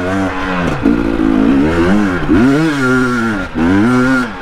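KTM 250 XC two-stroke dirt bike engine revving hard under load on a steep hill climb. Its pitch rises and falls about five or six times as the throttle is opened and eased.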